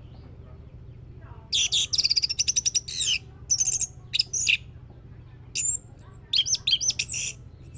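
Orange-headed thrush singing: a quiet first second and a half, then a fast run of high, clipped notes, followed by shorter phrases of swooping, looping whistles with a brief pause midway.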